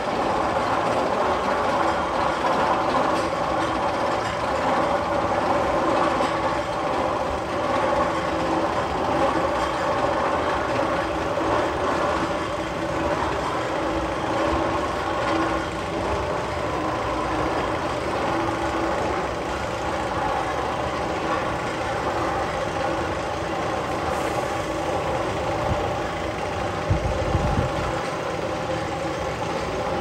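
Steel roller coaster chain lift (Magnum XL-200) hauling a loaded train up the lift hill: a steady mechanical rumble and clatter from the chain and track. A short low thump about 27 seconds in.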